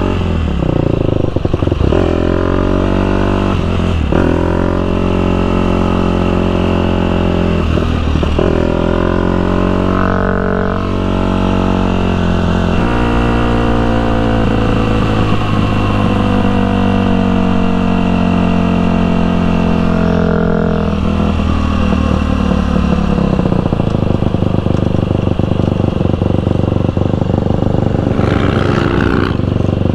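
KTM dirt bike engine pulling up through the gears. Its pitch climbs and drops back at each upshift, then holds one long slow climb. About three quarters of the way in it eases off and drops to a steady, lower note.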